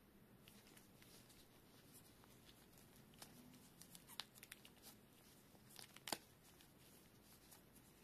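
Faint handling noise: nitrile-gloved fingers rubbing and working a braided USB-C cable and its rubber cable-tie strap, with scattered small clicks and rustles, the sharpest about six seconds in.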